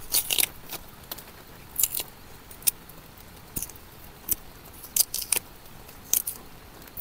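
Knife blade scraping and slicing the thick peel off a cassava (yuca) root: about ten short, crisp scrapes at irregular intervals.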